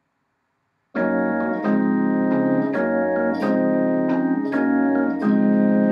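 Casio electronic keyboard playing sustained chords that start about a second in and change at a steady pace, about every two-thirds of a second.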